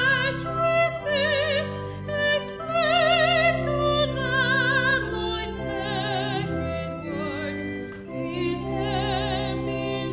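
A woman singing with wide vibrato, accompanied by sustained organ chords.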